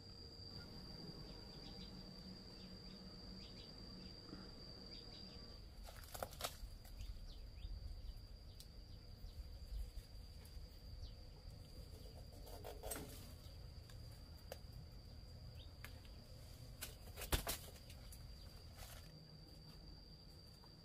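Faint steady high-pitched insect drone, a cricket- or cicada-like trill that drops away in the middle and returns, over outdoor ambience. Around three sharp knocks or snaps cut through it, the loudest in the last third.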